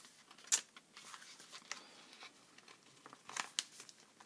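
Paper rustling and crinkling as hands fold and press patterned scrapbook paper around a notepad, with a sharper rustle about half a second in and a few more near the end.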